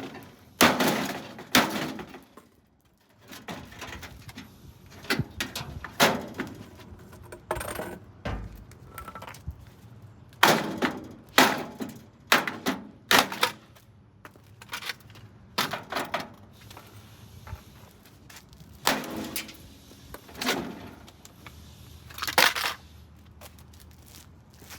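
Dometic RV microwave's metal and plastic housing being struck over and over and broken apart, an irregular run of hard blows with loose pieces clattering and jangling.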